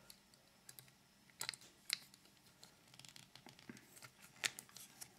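Faint handling of small plastic toy parts: a few sharp clicks and taps as a plastic accessory is pressed into a transforming-robot figure's hand, the clearest about two seconds in and again near the end.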